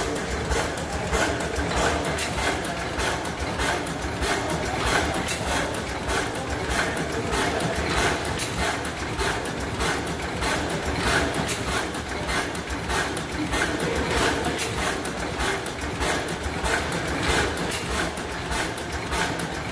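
A 15-horsepower side-shaft stationary gas engine running steadily, with a fast, even run of mechanical clicks from its valve gear over a constant engine din.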